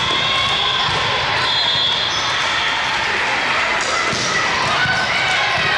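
Indoor volleyball rally in a large, echoing hall: the ball struck and bouncing with a few sharp knocks, and players' voices calling out over a steady din.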